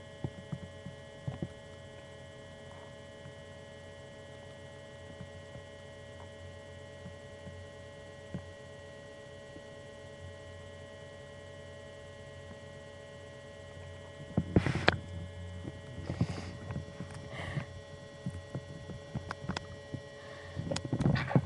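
Sneezing: a run of short, sudden sneezes from about two-thirds of the way in, over a steady electrical hum.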